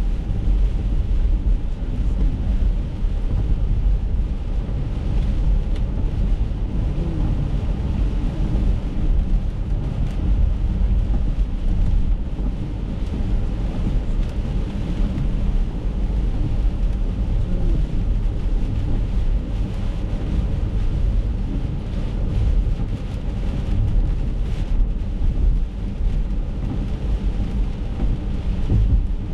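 Steady road rumble and wet-tyre hiss inside an Acura MDX's cabin while it drives through heavy rain, with rain on the windscreen.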